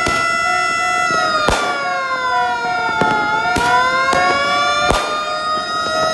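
Several fire-engine sirens sound at once. One holds a steady high tone, another wails down in pitch and back up over a few seconds, and a lower tone pulses beneath them. Several sharp firework bangs crack through the sirens.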